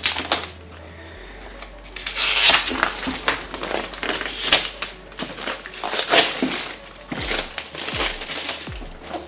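Cardboard shipping box and its packing being handled and opened: rustling and scraping with scattered clicks and knocks, loudest about two seconds in.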